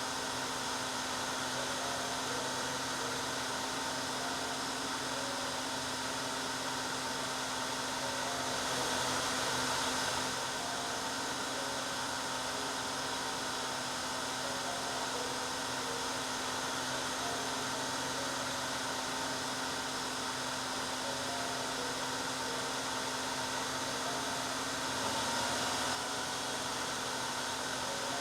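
Hair dryer running steadily: an even rush of blown air over a low motor hum. It swells slightly for a couple of seconds about nine seconds in and again near the end.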